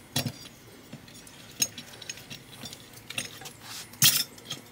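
Metal CVT clutch parts clinking and knocking on a workbench as the clutch is taken apart by hand: a few separate clanks, the loudest near the end.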